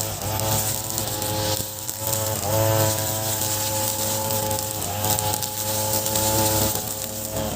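Ogawa 26cc multi-tool brush cutter, fitted with a trimmer plate and 3.0 mm serrated nylon line, running at high revs while cutting grass. The engine note sags and then revs back up about every two and a half seconds as the throttle is eased and opened.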